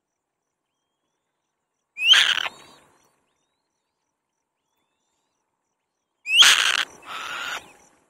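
Black-winged kite calling: two harsh screeching calls, each opening with a short rising whistle, about two seconds in and again near the end, the second followed at once by a quieter, hoarser call.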